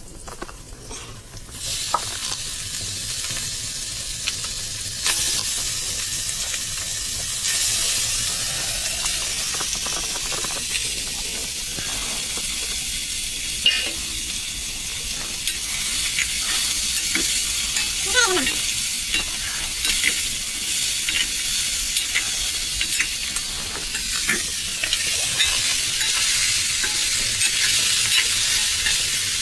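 Food sizzling as it fries in a pan, with a utensil clicking and scraping against the pan as it is stirred. The sizzling starts about two seconds in and then runs steadily.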